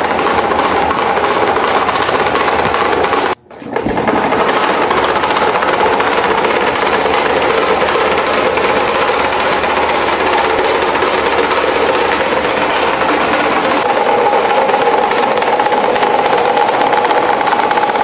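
Electric fans running at speed: a steady whir with a rush of air, breaking off for a moment about three seconds in.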